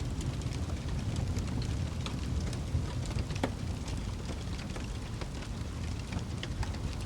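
Wood fire burning in a fireplace: a steady low rumble of flames with scattered crackles and pops, one sharper pop about three and a half seconds in.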